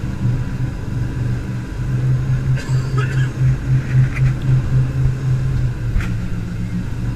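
Jet boat engine running under way, a loud low drone that starts pulsing about three times a second about two seconds in. A few brief, sharp sounds stand out over it.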